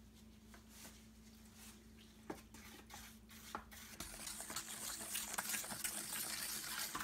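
Water poured into rapid-set joint compound powder in a metal pan, then the wet mud stirred with a wooden stick: squelching and scraping with small clicks against the pan, growing louder and busier from about four seconds in.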